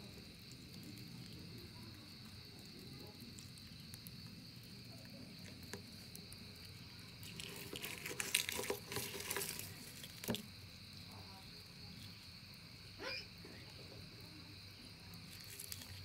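Night insects trilling steadily in several high pitches. A few seconds of rustling and crackling come about halfway through.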